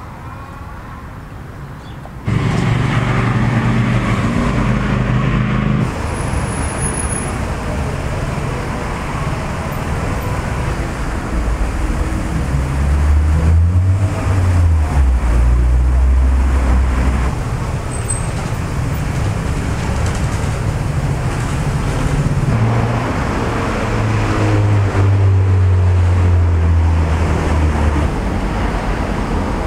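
Steady motor-vehicle traffic noise, with low engine hums that swell and fade as vehicles pass. The level steps up suddenly about two seconds in.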